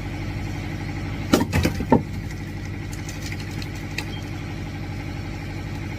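A small engine runs steadily at an even pitch. About a second and a half in comes a quick cluster of sharp cracks and knocks as firewood is split.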